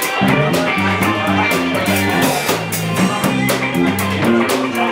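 Live band playing: a walking electric bass line under a drum kit and electric guitar.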